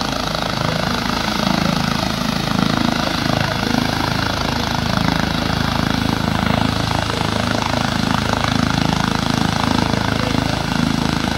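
Twin-engine air ambulance helicopter with a fenestron tail running on the ground, its turbines and turning rotor making a loud, steady noise ahead of take-off.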